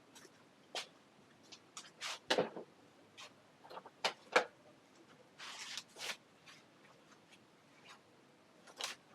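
Handling noises: scattered irregular clicks and knocks, with a brief rustle about halfway through.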